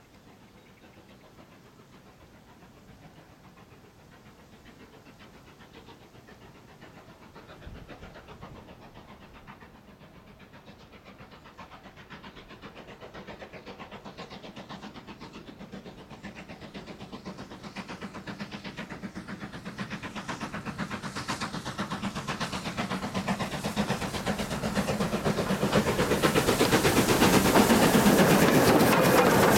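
LNER K1 2-6-0 steam locomotive No. 62005 working hard up a gradient, its exhaust beats growing steadily louder as it approaches and comes close by near the end.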